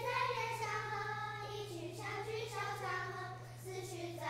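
A group of children singing a song together in held, gliding notes, with a steady low hum underneath.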